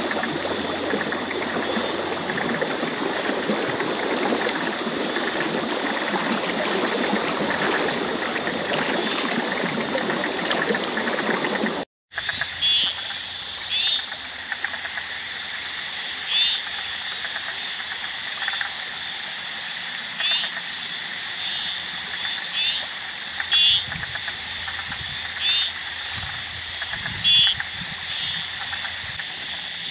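Floodwater running, a steady rushing noise, until a sudden cut about twelve seconds in. Then frogs calling at night: short pulsed croaks every second or two over a steady high-pitched chorus.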